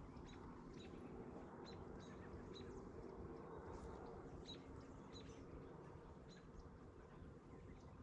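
Faint, short bird chirps repeating at irregular intervals over a quiet, steady outdoor background.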